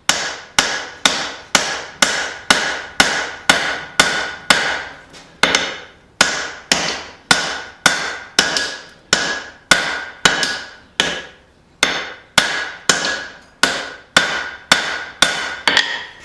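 Forging hammer blows on hot steel over an anvil as facets are drawn into a hammer head. The strikes come steadily at about two a second, each ringing briefly, with one short pause about five seconds in.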